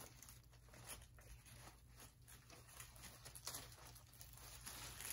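Near silence with faint, intermittent rustling of artificial flower stems being handled, over a low steady room hum.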